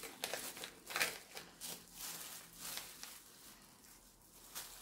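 Faint, irregular rustling and crinkling of packaging as a hand rummages through a bag of used-up cosmetic products.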